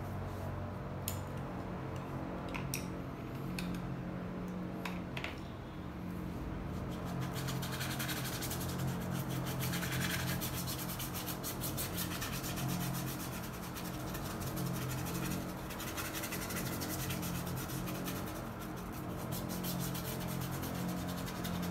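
Paintbrush scrubbing acrylic paint onto canvas, a dry scratchy rubbing that gets going a few seconds in and keeps on, with a few light taps before it. Under it runs a steady low machine hum.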